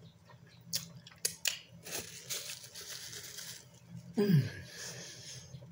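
Mouth sounds from a woman eating: a few soft lip smacks or clicks, a breathy stretch, then a short falling hum about four seconds in.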